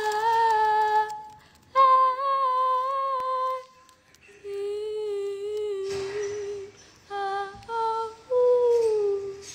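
A young woman humming a wordless tune in long held notes, in about six phrases with short breaths between, the last note sliding down in pitch. It is a tune that is stuck in her head.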